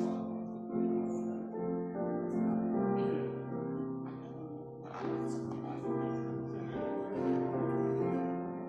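Slow instrumental music on a keyboard instrument, with long held chords that change every second or so.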